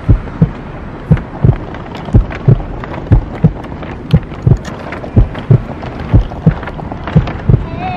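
A low, heavy thumping beat in pairs, like a heartbeat: two thumps about a third of a second apart, repeating about once a second, over a steady background hiss.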